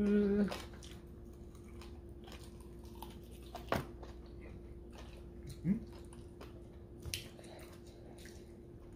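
People biting and chewing fried Buffalo chicken wings, with small wet mouth clicks and one sharp click about four seconds in, over a faint steady hum.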